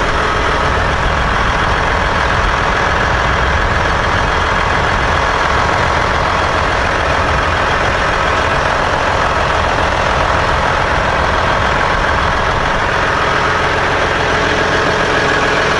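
Caterpillar 988H wheel loader's C18 diesel engine running steadily, heard up close through the louvred engine-compartment grille.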